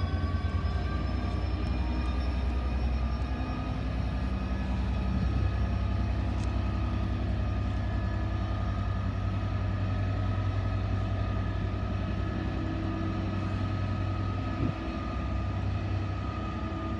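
Freightliner diesel freight locomotive pulling away under power. It has a deep, steady engine rumble and a high turbocharger whine that rises in pitch over the first couple of seconds and then holds, a sound likened to a 747 taking off.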